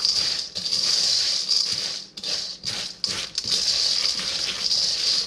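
Crushed pretzels in melted butter and sugar stirred with a rubber spatula in a stainless steel mixing bowl: a steady scraping rattle of pretzel pieces against the metal, with brief pauses about two and three seconds in.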